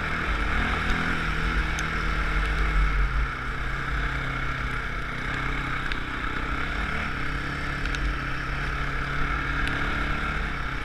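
A small off-road vehicle's engine running under way, heard through a helmet-mounted camera with wind buffeting the microphone. The engine note drops about three seconds in, then holds steady.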